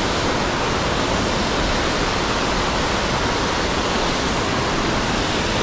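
Steady rush of the Konaka Ōtaki waterfall: falling water heard as an even, unbroken noise.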